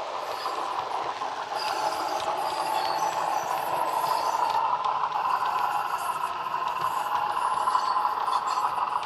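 Class 117 diesel multiple unit engine sound played by a model's DCC sound decoder through two small megabass speakers, with the unit under way. It grows louder as the model comes close and passes, with light clicks over the steady engine note.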